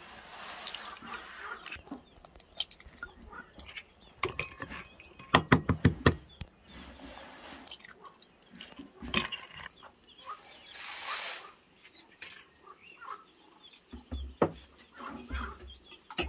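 Chickens clucking, with scattered clicks and knocks; the loudest is a quick run of about eight knocks about five seconds in, and a short hiss follows a few seconds later.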